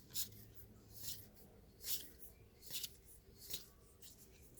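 Trading cards sliding against one another as a pack is flipped through card by card: five short, faint swishes about a second apart.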